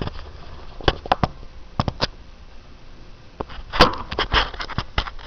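Handling noise close to the microphone as a man reaches toward the webcam: scattered sharp clicks and taps, a few in the first two seconds and a denser cluster near the end.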